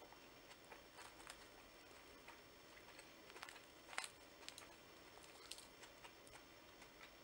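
Near silence with faint scattered crackles and clicks from a crusty bánh mì baguette being turned in the hands; the sharpest click comes about four seconds in.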